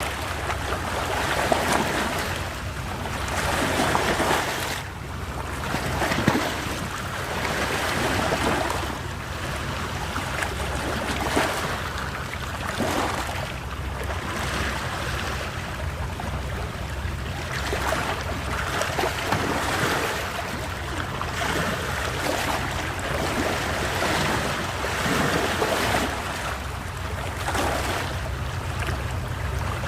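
Sea waves washing and breaking, swelling and ebbing every few seconds, over a steady low rumble.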